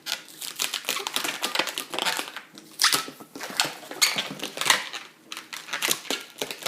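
Latex modelling balloon squeaking and rubbing as it is twisted by hand into small bubbles and pinch twists: an irregular run of short rubbery squeaks and creaks.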